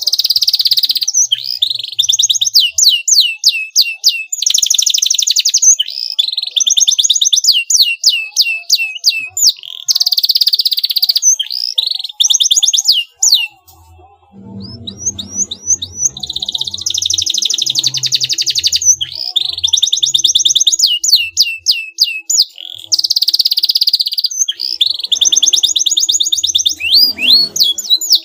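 A domestic canary singing a long, loud song of rapid rolling trills and quick repeated sweeping notes, with a brief pause about halfway through. This is the kind of full canary song used as a lure to set rival canaries singing in reply.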